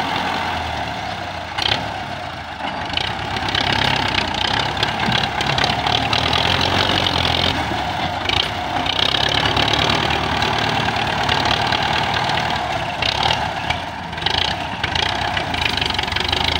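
Diesel tractor engines running under load while a front-loader tractor digs and lifts soil with its bucket: a steady low drone with a higher rushing noise that swells and fades every few seconds.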